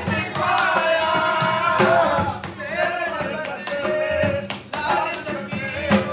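A dhol, the large double-headed barrel drum, beaten with sticks in a quick dance rhythm, with singing over it.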